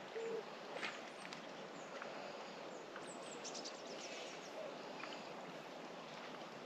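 Faint lakeside outdoor ambience: a steady soft hiss with birds calling. A low coo ends right at the start, and a quick run of high chirps comes about three seconds in.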